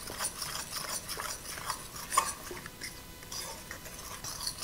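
Metal fork stirring eggs and buttermilk into flour in a ceramic mixing bowl, making batter. The fork gives quick, irregular clicks and scrapes against the bowl.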